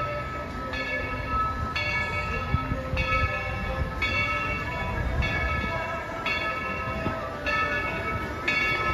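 Narrow-gauge steam locomotive's bell ringing about once a second as the engine pulls in, over the low rumble of the working locomotive.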